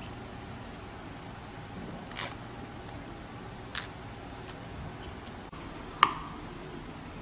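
A kitchen knife knocks sharply once on a wooden cutting board while slicing garlic near the end, the loudest sound here. Before it, a few light clicks as ingredients are handled on a ceramic plate, over a steady low background hiss.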